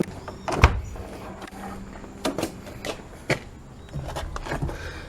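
A series of separate knocks and clunks, like a door or panel being handled. The loudest comes about half a second in, with smaller ones scattered through the rest.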